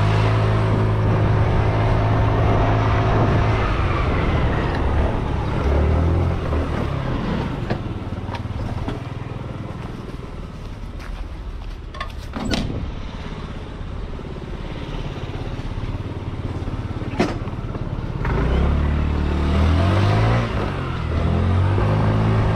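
Small delivery motorcycle's engine running as the bike rides and slows to a stop, then a quieter stretch of about ten seconds with a few sharp clicks as a newspaper is pushed into a mailbox. The engine then revs up again as the bike pulls away.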